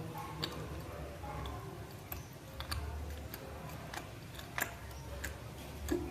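Raw multani mitti (Fuller's earth clay) chunks crunched and chewed close to the microphone: irregular sharp cracks, about a dozen, over a low background hum.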